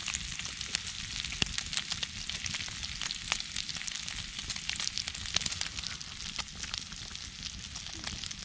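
Campfire crackling and hissing close up, with many sharp pops over a steady sizzle.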